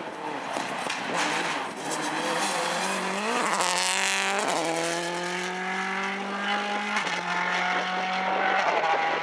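Subaru Impreza S12 WRC rally car's turbocharged flat-four engine accelerating hard past and away. It revs up steeply about three seconds in, then changes up a gear about halfway through and again later, the revs climbing after each change.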